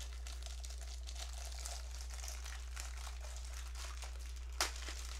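Bubble wrap and clear plastic packaging crinkling and rustling in the hands as a small item is unwrapped, with one sharp click about four and a half seconds in. A steady low hum runs underneath.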